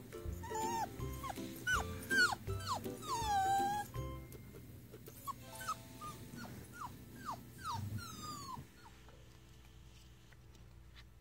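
Five-week-old Jindo puppy whining again and again in short, falling, high cries, fussing because it is sleepy. The whines are loudest over the first four seconds, grow fainter and stop about nine seconds in, over light background music.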